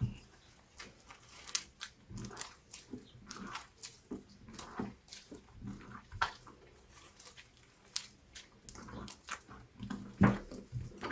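Slime being squeezed and worked by hand: irregular sticky squelches and small clicks, several a second, with a louder squelch near the end.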